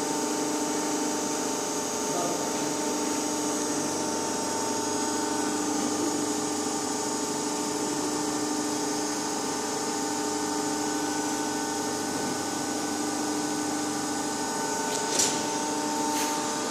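Hydraulic pump of a 135-ton CNC press brake running steadily after start-up, a constant hum with a hiss. One short sharp click about 15 seconds in.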